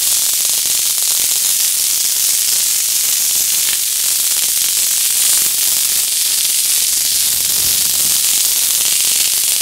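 Fireworks merged into a steady, dense hiss with no separate bangs.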